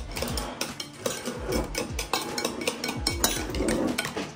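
Metal spoon stirring baking powder into flour in a bowl, with irregular clinks and scrapes of spoon against bowl.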